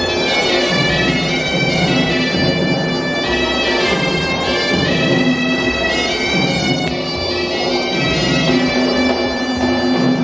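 Horanewa, the Sri Lankan double-reed pipe, playing a shrill, shifting melody over a steady beat of Kandyan drums.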